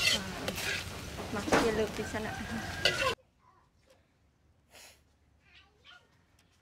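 Outdoor cooking ambience with a voice and the clink of utensils on metal, cut off abruptly about three seconds in, leaving near silence with a few faint small sounds.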